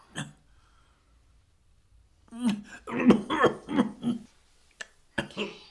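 An elderly man coughing and clearing his throat after a sip of water: a run of hacking coughs from about two seconds in, lasting about two seconds, with another short cough near the end. Coughing on a drink like this is typical of the swallowing difficulty that comes with Parkinson's disease.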